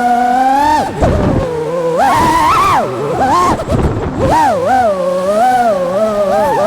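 FPV quadcopter's brushless motors and propellers whining, the pitch constantly rising and falling with the throttle, with short bursts of rushing air noise about a second in and again in the middle.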